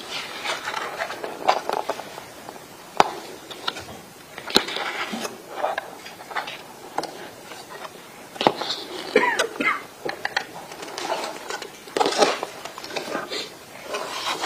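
Courtroom room noise: scattered sharp clicks and knocks over rustling, with faint voices in the background.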